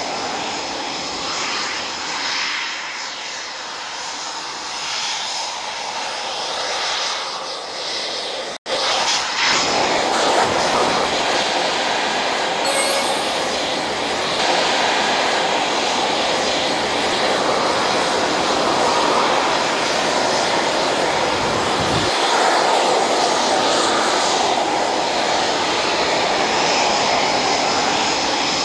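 Jet engines of Eurofighter Typhoon fighters running steadily as the jets taxi. The noise is loud and even, cuts out for an instant about eight and a half seconds in, and comes back louder.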